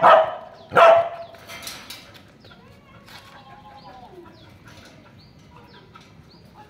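A nursing mother dog barks twice in the first second, two short loud barks, then stays quiet while small birds chirp faintly.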